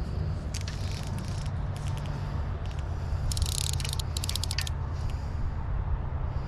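Steady low rumble of river flow and wind at the stream, broken by several short bursts of crackling clicks, the densest lasting about a second and a half from around three seconds in.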